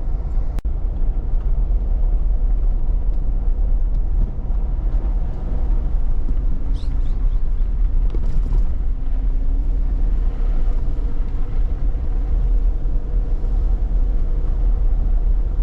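Jeep driving on paved road, heard from inside the cabin: a steady low rumble of engine and tyre noise.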